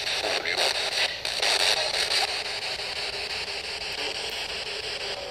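Radio-style static hiss, choppy and broken up for the first couple of seconds, then steady.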